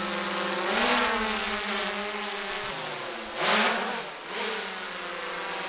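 Small quadcopter drone's motors buzzing, several steady pitches together that rise and bend about a second in as it is throttled up. A brief rush of noise about three and a half seconds in.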